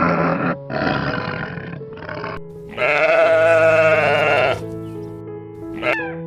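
A farm animal bleating: three short rough calls, then one long wavering bleat about three seconds in, over background music with held notes.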